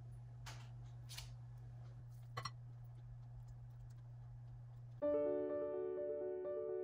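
Soft scrapes of a squeeze-handle ice cream scoop dropping muffin batter into paper cups over a steady low hum, with a sharp double click from the scoop's release lever about two and a half seconds in. About five seconds in, piano background music starts abruptly and is louder than everything before it.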